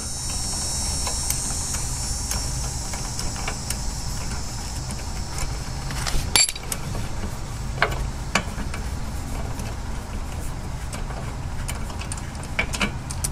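Scattered metal clicks and knocks from a wrench turning out a rusted rear wheel bearing mounting bolt, with one louder knock about halfway through and a run of quicker clicks near the end. A steady low hum runs underneath.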